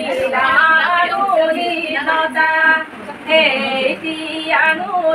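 Women singing an unaccompanied Assamese wedding song (biya naam), in held, sliding phrases with a short break about three seconds in.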